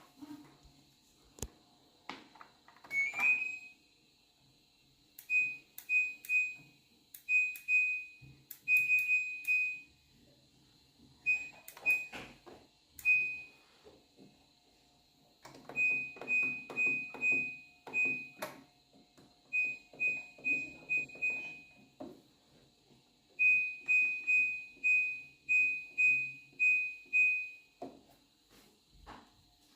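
Washing machine's electronic beeper sounding short high-pitched beeps, all on one pitch, in runs of several at a time with pauses between, mixed with sharp clicks.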